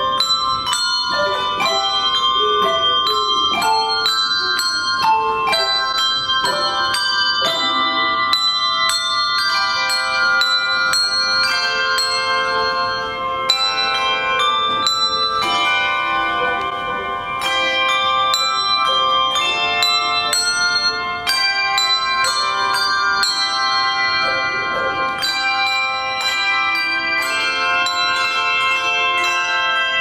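Handbell choir ringing brass handbells in a piece of music: many struck bell notes and chords that ring on and overlap, with a steady pulse of new strikes.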